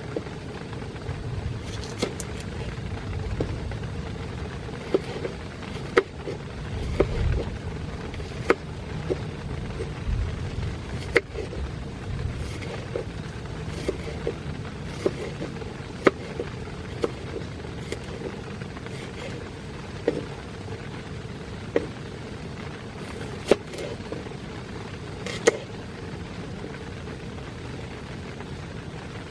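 Rain falling on a tent: a steady hiss with sharp single taps of heavier drops hitting the fabric every second or two. A low rumble comes and goes during the first third.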